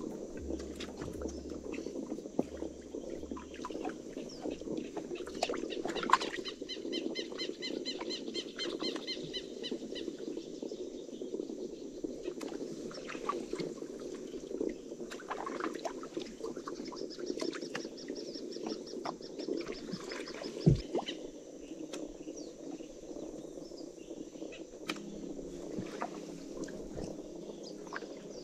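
Outdoor ambience with birds calling over a steady low background noise: a run of repeated calls about six seconds in, and a fast high trill about seventeen seconds in. A single sharp knock about twenty-one seconds in is the loudest sound.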